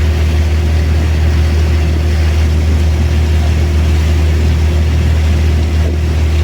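Boat engine running steadily, a deep constant drone with a fainter steady hum above it, over an even rushing hiss.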